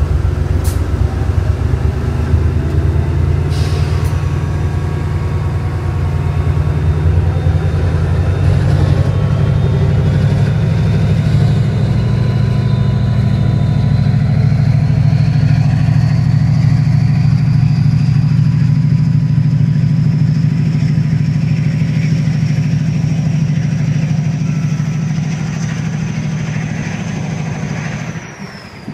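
Class 68 diesel-electric locomotive pulling away under power with a train of coaches: a loud, steady, deep engine note, and a faint high whine that rises slowly in pitch over the second half. The sound drops away abruptly just before the end.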